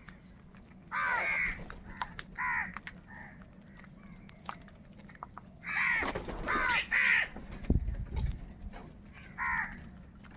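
Crows cawing: single harsh caws about a second in and again around two and a half seconds, a burst of several crows calling over each other around six to seven seconds, and one more caw near the end.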